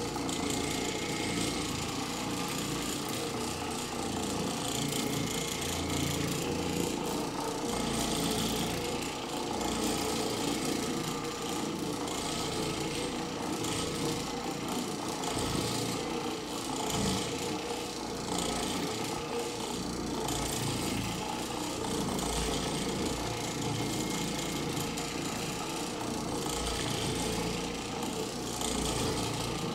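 Oreck Orbiter orbital floor machine running steadily, its motor driving a cleaning pad that rubs over the carpet.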